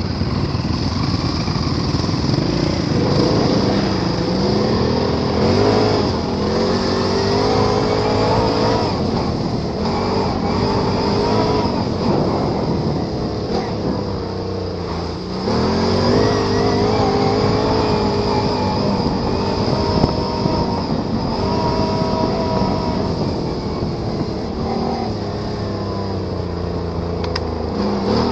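ATV engine running under riding load, its pitch repeatedly rising and falling as the throttle is worked, with a brief drop in engine speed about halfway through before it revs up again.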